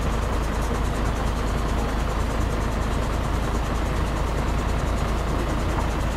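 Small river boat's motor running steadily as it approaches across the water, a constant drone with a deep rumble.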